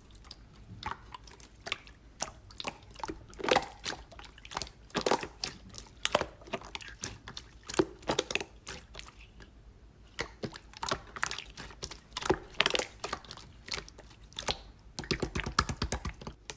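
Slime being squeezed and pressed by hand, making irregular sticky clicks and pops, with a quick run of small pops near the end.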